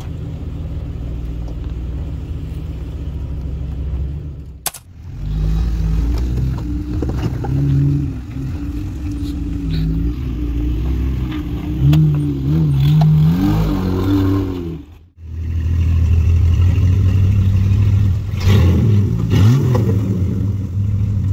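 Off-road Jeep engines running at crawling speed, revving up and down in spurts as they work over rock obstacles. The sound cuts off abruptly twice, about five and fifteen seconds in.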